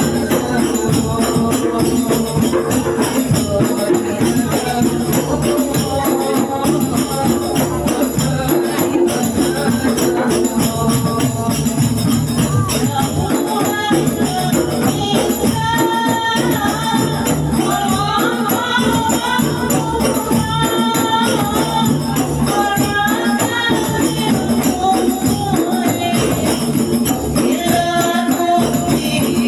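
Group singing of an Arabic devotional chant, with a steady beat of jingling hand percussion.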